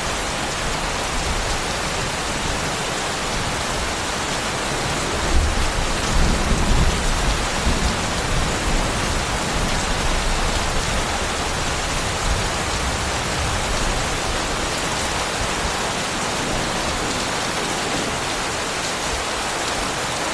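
Steady, heavy rainfall, an even hiss throughout, with a low rumble swelling about five to eight seconds in.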